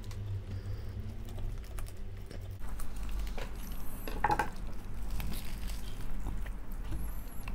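Spoon and fork clinking and scraping against a plate during a meal, with scattered small clicks and one louder clink about four seconds in.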